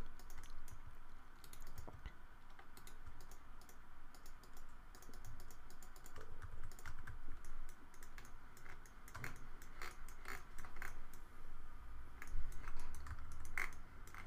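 Computer keyboard keys pressed irregularly, a scattering of separate clicks rather than steady typing, as shortcut keys are used one at a time.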